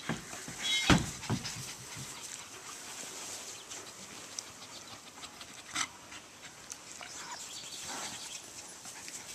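Puppies panting and moving about in long grass, with a couple of louder rustling bursts about a second in.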